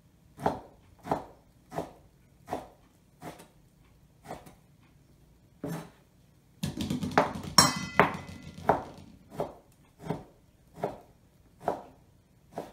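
Chef's knife slicing beef flank steak across the grain, knocking on a plastic cutting board about every two-thirds of a second. From about six and a half seconds to nine seconds there is a louder, busier stretch of knocks and noise with a brief ringing tone, then the steady slicing resumes.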